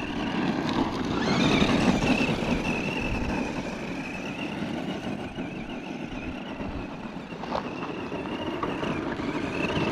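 Tamiya Blackfoot RC monster truck running on gravel: its 18-turn Speedworks 350 brushed electric motor and gears give a high whine that climbs as it accelerates about a second in, then wavers with the throttle, over a rushing noise from the tyres on the gravel.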